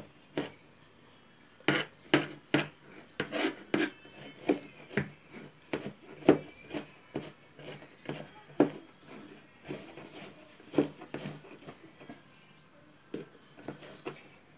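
Kitchen knife mincing garlic, onion and ginger together on a plastic cutting board: sharp chopping knocks, a few a second, in irregular runs.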